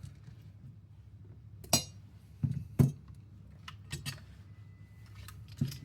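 Small hard parts being handled on a workbench: about five sharp clicks and clinks, the loudest a couple of seconds in, over a steady low hum.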